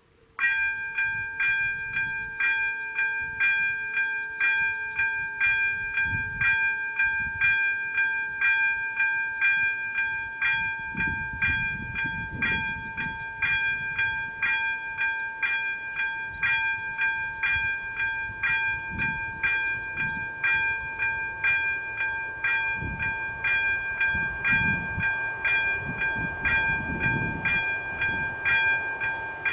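Electronic level-crossing bell (ZV-02) starts suddenly about half a second in and rings steadily, a bright ding repeated about twice a second, signalling that the crossing has been activated for an approaching train. A low rumble comes and goes underneath.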